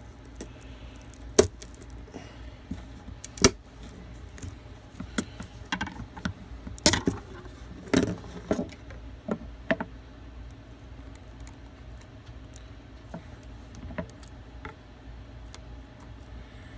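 Tree grafting pliers being worked on the end of a cedar arrow shaft to cut a self nock: a series of sharp, irregular clicks and snaps as the blades close and bite into the wood, with handling rattles between them.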